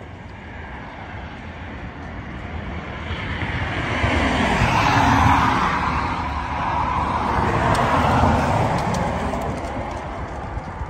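Low-flying aircraft passing overhead: a rushing engine noise that builds, is loudest about five seconds in, dips, rises again near eight seconds, then fades away.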